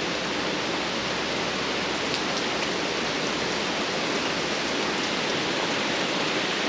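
Heavy rain falling steadily, a constant even hiss of downpour with a few faint drop ticks.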